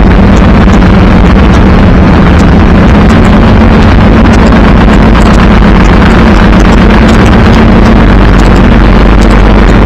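Freshly built Ducati Monster S4R liquid-cooled L-twin engine, just started, running steadily without revving. Very loud, close to the microphone.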